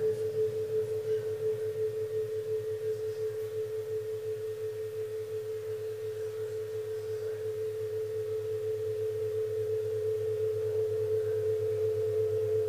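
Modular synthesizer holding a steady, pure-sounding tone over a low pulsing hum. The level wavers quickly, dips around the middle and swells back up towards the end.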